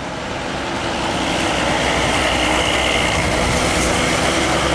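Hino 500 FM 260 Ti self-loader truck's diesel engine running with heavy tyre and road noise as the loaded truck approaches. The sound grows louder over the first two seconds, then holds steady.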